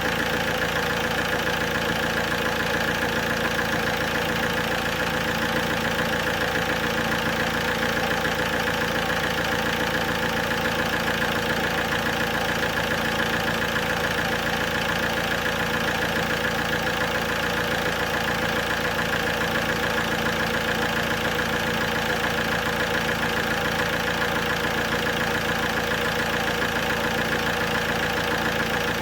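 Alfa Romeo 147 1.9 JTD 8-valve diesel engine idling steadily.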